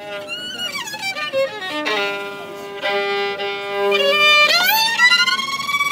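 Solo violin bowed: it slides down through a few notes, holds one steady note for about two seconds, then glides up into a long high note near the end.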